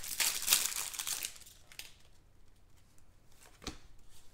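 Clear plastic card sleeve crinkling as a thick trading card is worked out of it. The crinkling stops about a second in, and there is a single light tap later on.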